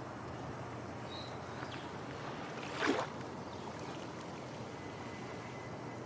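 Steady wash of gentle surf and breeze at a beach, with a short louder noisy burst about halfway through.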